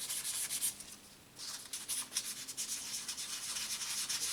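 Wet sandpaper being rubbed by hand over an aluminium heat sink in quick back-and-forth strokes, a dry, high scratching that stops briefly about a second in and then picks up again.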